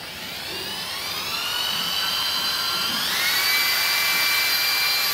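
Electric hammer drill spinning up from low to high speed without load: its motor whine rises over the first few seconds, steps up sharply about three seconds in, then holds steady at high speed.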